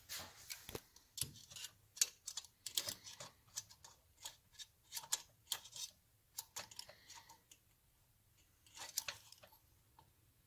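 Light, irregular metallic clicks and taps of parts and hand tools being handled while a rocker box is fitted over the push rods on a motorcycle cylinder head, with a short lull shortly before the end.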